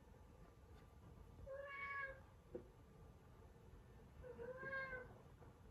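A cat meowing faintly twice, two short calls about three seconds apart.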